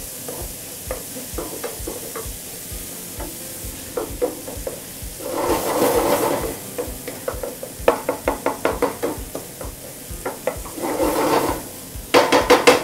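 Minced onion, garlic, ginger and shiitake sizzling in oil in a frying pan, being sautéed over medium heat until soft. A wooden spatula stirs and scrapes through the mixture and taps against the pan, with louder stirring passes about five seconds in and again near the end.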